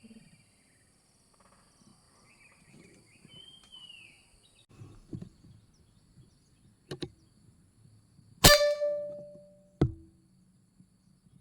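FX Wildcat pre-charged pneumatic air rifle firing a single shot: one sharp crack with a brief ringing tone that fades over about a second. A second, quieter sharp knock follows about a second later, with faint bird chirps earlier on.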